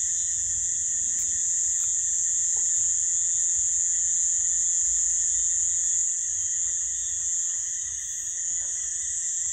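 Steady night chorus of frogs and insects: a continuous high-pitched shrill, unbroken throughout.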